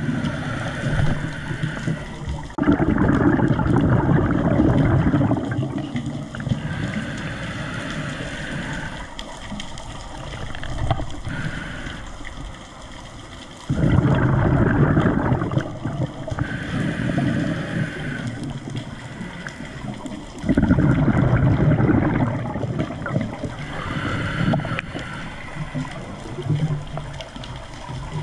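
Water sloshing and gurgling around an underwater camera. It comes in surges that start abruptly about three, fourteen and twenty seconds in, each fading over a few seconds.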